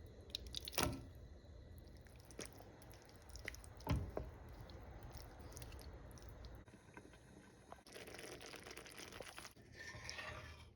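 Quiet kitchen handling sounds: two sharp knocks, the first about a second in and the second about four seconds in, and a stretch of crunchy, rustling noise near the end.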